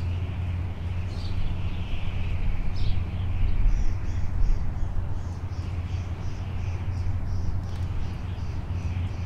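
Outdoor ambience: birds chirping, with a quick run of repeated high chirps in the middle, over a steady low rumble.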